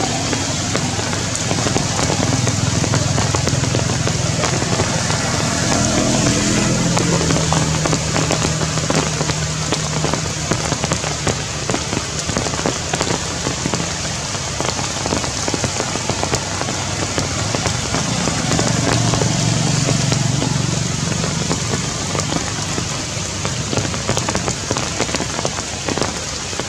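Heavy rain falling steadily on tree leaves, a dense patter of drops. A low hum swells and fades twice, a few seconds in and again about two-thirds of the way through.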